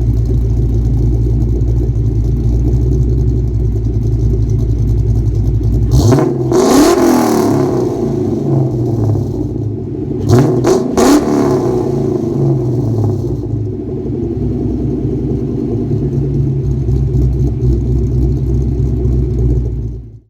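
1999 Mustang GT's 4.6-litre V8 with Comp Stage 2 cams, BBK shorty headers, Pypes X-pipe and Magnaflow mufflers, idling steadily and loud. It is revved once about six seconds in, then blipped twice in quick succession around ten seconds, before settling back to idle.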